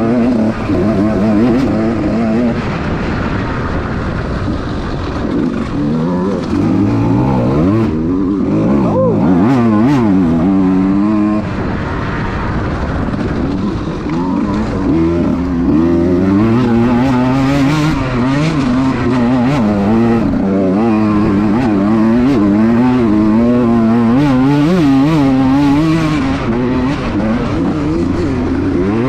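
Small-bore two-stroke dirt bike engine being ridden hard, its note rising and falling continuously with throttle and gear changes.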